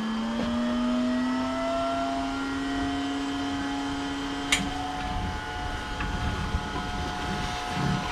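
Bee vacuum motor running with a steady whine. Its pitch climbs slowly over the first few seconds as it spins up, then holds level. A single sharp click comes a little past the middle.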